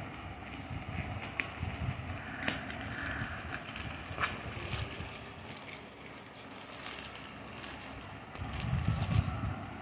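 Packaging rustling and crinkling, with scattered sharp crackles, as a saree is unpacked and handled. A low rumble rises briefly near the end.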